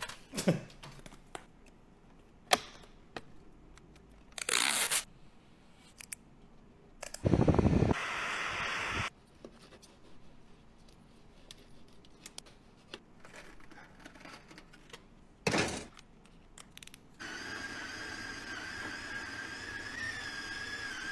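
Scattered clicks and taps and short bursts of rustling and tearing from hands working on car badges, the loudest about a third of the way in. Near the end, a cordless drill spins a rubber eraser wheel against the car's paint to strip old badge adhesive, a steady whine.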